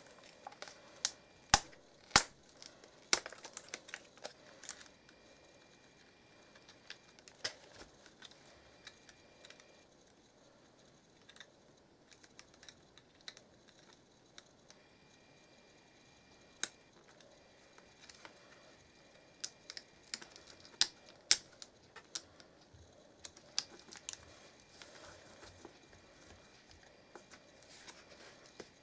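Sharp plastic clicks and taps from fingers working the cable connectors and small parts inside an opened laptop. They come in scattered bunches: several near the start, a quiet stretch in the middle, then another run of clicks about two-thirds of the way in.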